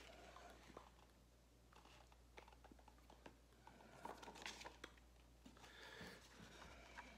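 Near silence: faint rustling and scattered light taps of a cardboard folder being opened and handled, over a steady low room hum.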